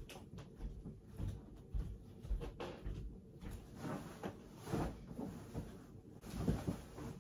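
Irregular soft knocks, thumps and rustles of things being handled, several separate bumps a second or so apart, with a few louder rustly bursts in the second half.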